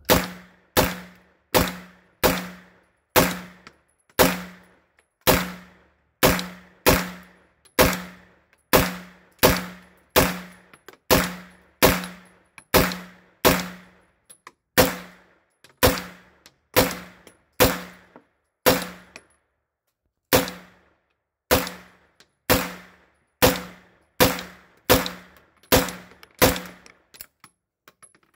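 PTR 9CT, a 9mm MP5-clone, fired semi-auto through a full magazine: about thirty single shots at a steady pace of roughly one to two a second, with a brief pause about two-thirds of the way through. Every round fires and cycles without a stoppage.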